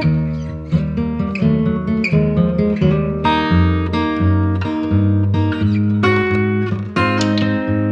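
Background music played on acoustic guitar, a steady run of plucked and strummed notes.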